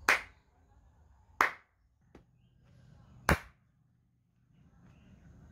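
Three sharp single hand claps, spaced about one to two seconds apart, with a faint click between the second and third. The claps are the trigger sounds for an Arduino clap switch built on an LM393 sound sensor, switching an LED on and off.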